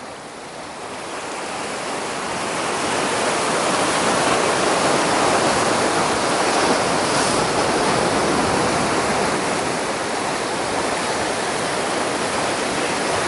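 Sea surf washing and breaking around rocks, a rushing wash that builds over the first few seconds and then holds steady.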